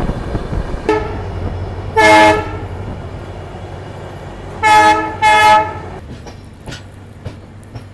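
Train horn sounding three short blasts, one about two seconds in and two close together near the five-second mark, over the steady rumble of the moving train. Rail clicks follow near the end.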